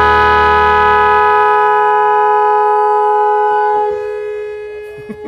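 Dual snail-type electric horn (Magic Horn) sounding one long, loud, steady blast of several tones at once for about four seconds, then dying away.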